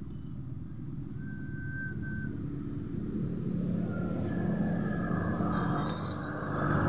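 A motor vehicle engine running, growing steadily louder from about three seconds in, with a few light clicks near the end.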